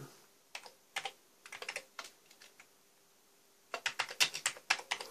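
Typing on a computer keyboard to enter a shell command: a few scattered keystrokes, then a quick run of keystrokes near the end.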